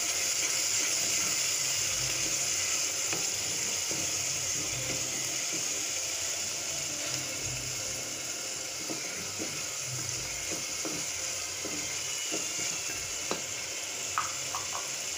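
Onions, ginger-garlic paste and ground turmeric, chilli and coriander sizzling in hot mustard oil in a pressure cooker as the masala is fried. A wooden spatula stirs it, scraping and knocking against the pot now and then.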